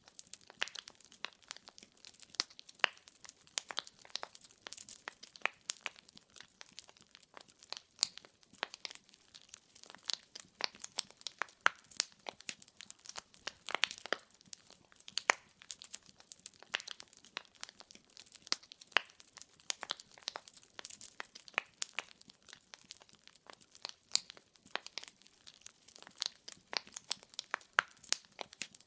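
Firewood burning in a fireplace, crackling and popping in a dense, irregular run of sharp snaps over a faint hiss.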